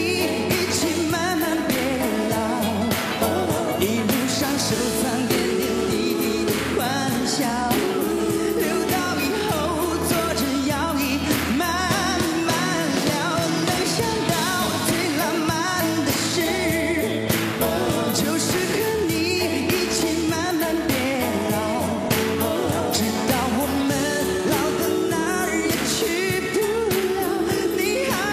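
A male voice sings a Mandarin pop ballad over a live band, with a steady drum beat throughout.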